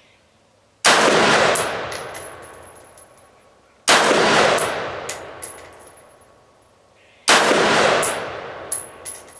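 Retro AR-15 (Colt 601-style) rifle fired three single aimed shots with Lake City 5.56 ammunition, about three seconds apart. Each sharp report is followed by a long echoing decay and a few short ticks.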